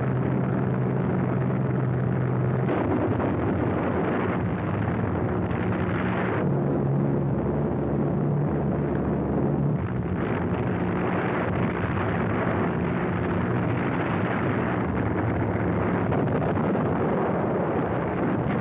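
Film sound effects of a bomber formation's engines droning over a continuous rumble of bombing. The low hum shifts in pitch a few times, about 3, 6 and 10 seconds in.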